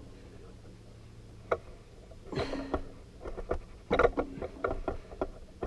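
Screwdriver working the terminal screws on an electric water heater's heating element. A single click comes about a second and a half in, then a run of small clicks and short scrapes.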